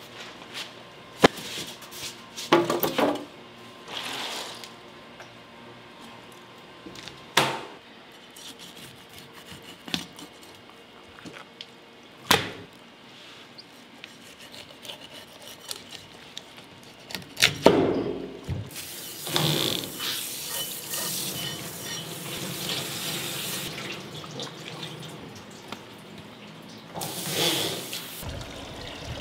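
Kitchen handling of a whole salmon: scattered sharp knocks and thumps of the fish and its box against a cutting board and a stainless steel tray. A tap runs for several seconds past the middle.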